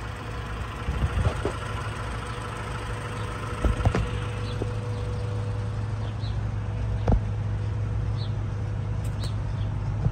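Honda B18C 1.8-litre four-cylinder VTEC engine with an aftermarket exhaust idling steadily, slowly growing louder, with a few short knocks.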